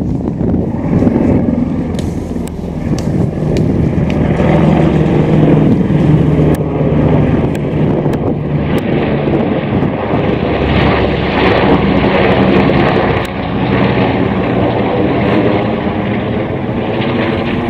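Helicopter flying low overhead: a steady rotor and engine drone that grows louder about four seconds in and stays loud.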